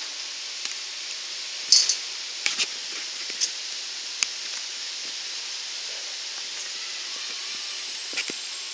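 Rushing, churning water of a raft ride's rapids channel as a steady hiss, with a few sharp clicks and knocks, the loudest just under two seconds in. A faint high whine joins in the second half.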